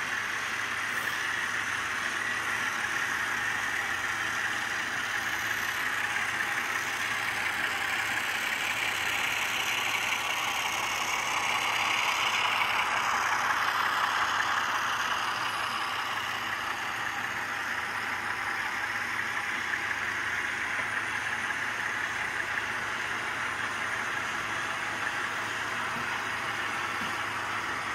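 Model train rolling past over the track and turnouts: a steady rolling rumble of wheels and running gear, louder about twelve to fifteen seconds in as the locomotive passes.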